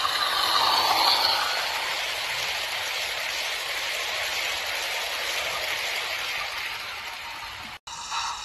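Model train running along its track: a steady rolling rattle of wheels on rails as the locomotive and its hopper wagons pass, slowly fading and cutting off sharply near the end.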